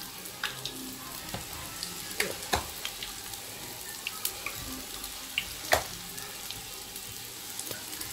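Puff puff dough balls deep-frying in hot oil in a small frying pan: a steady sizzle with scattered crackling pops, one louder pop a little past the middle.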